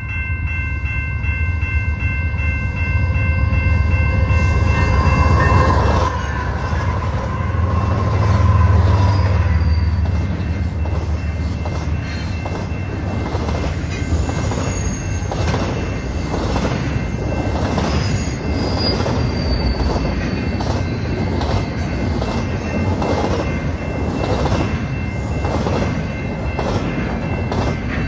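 Westbound Canadian Pacific freight train passing at track speed: a deep diesel locomotive rumble swells over the first ten seconds, then the double-stack container cars roll by with a steady clatter of wheels over rail joints, about one click a second, and brief high wheel squeals. A steady high ringing tone sits over it, strongest in the first few seconds.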